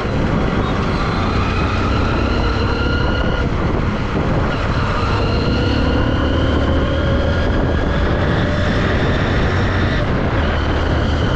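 Motorcycle engine running under way, its note climbing slowly in pitch with two breaks, about four and ten seconds in, over a steady heavy rumble of wind on the microphone.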